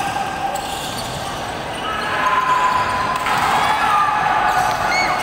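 Indoor basketball game play: the ball bouncing and sneakers squeaking on the wooden court, with players' voices calling out.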